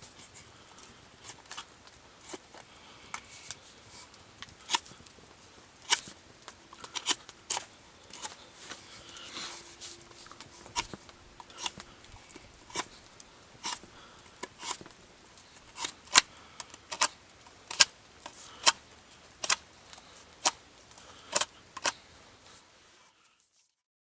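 Repeated sharp cuts or knocks of a hand tool on wood, at first irregular and then about one a second and louder later on, as when carving the wooden maul. The sound cuts off abruptly near the end.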